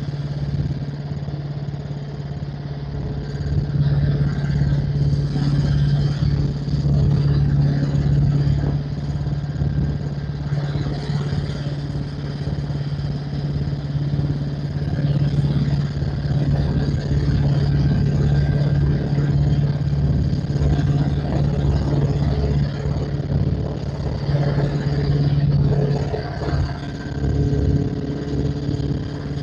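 Helicopter running steadily as it comes back around to land: a constant engine and rotor drone with a low, rapid rotor beat underneath.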